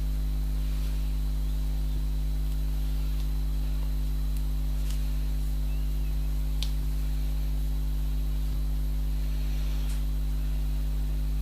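Steady electrical mains hum with its overtones, over which a few faint, light clicks of knitting needles sound as stitches are worked.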